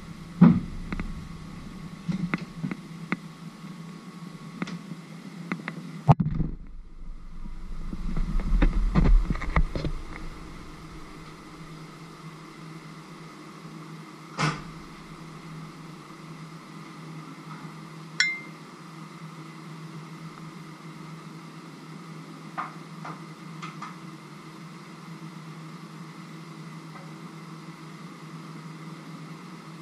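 A steady low hum, with scattered knocks and clicks and a rumble over the first ten seconds, then two sharp clicks later on.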